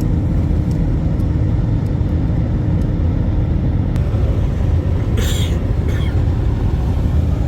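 Steady low rumble of a jet airliner's engines and airflow heard inside the passenger cabin. A short hiss comes about five seconds in, and a smaller one just after.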